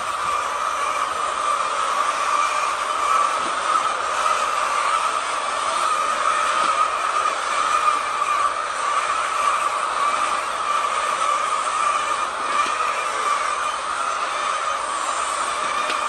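Steady, dense chorus of a large flock of white laying hens clucking and squawking all at once.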